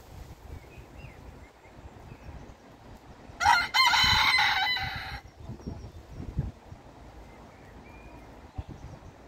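Barnevelder rooster crowing once, about three and a half seconds in: a short first note, then a long held note, the whole crow lasting under two seconds.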